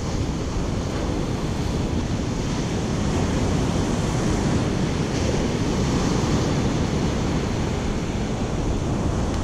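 Surf breaking and washing up a sandy beach, a steady rush of noise, with wind buffeting the microphone.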